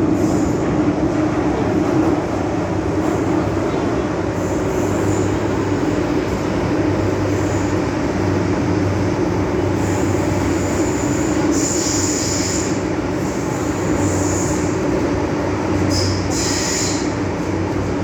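Metro-Cammell M-Train electric multiple unit running between stations, a steady rumble and hum with short high-pitched wheel squeals, the loudest about two-thirds of the way through and again near the end.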